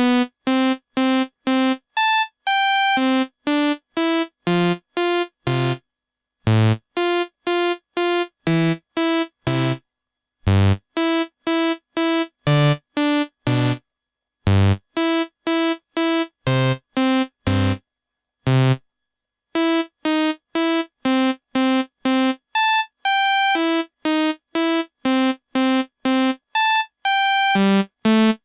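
Synthesized ringtone tune: a melody of short, clipped electronic keyboard notes, about two to three a second. Each note ends in dead silence, and the phrases are split by a few brief pauses.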